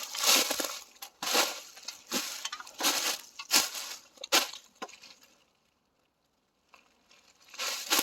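Footsteps crunching through dry leaves and brush, a step roughly every second. They stop for about a second after the fifth second, then start again near the end.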